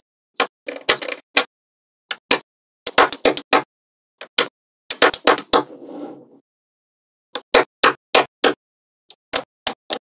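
Small magnetic balls clicking sharply together as strips of them are snapped onto a wall built of magnetic balls. The clicks come in quick clusters of a few, with short silent gaps between.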